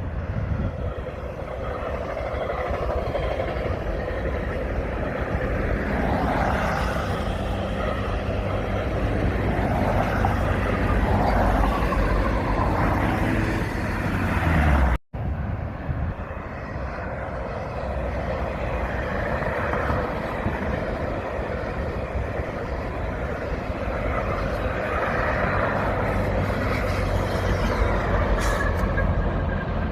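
Steady rumble of a GO Transit diesel train, broken by a sudden cut about halfway through.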